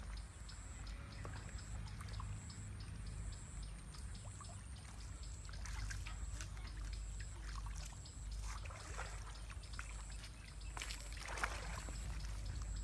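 Shallow pond water splashing and trickling as a man wades and feels along the bank with his hands in the water, with a few short splashes in the second half.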